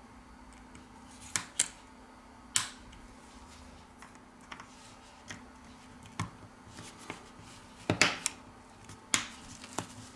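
Irregular sharp clicks and taps of tweezers and small phone parts against a Huawei Mate 20's frame as a module is positioned and pressed into place, about eight in all, the loudest pair near the end.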